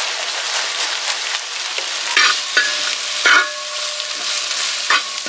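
Hot oil and masala sizzling in a large metal pan as crushed fried onions are tipped in. From about two seconds in, a spoon scrapes against the pan a few times as they are stirred.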